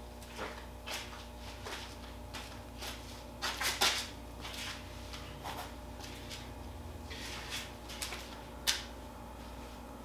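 Someone rummaging for a small object: scattered light clicks, knocks and rustles, busiest around the middle, with a sharp click near the end, over a steady low hum.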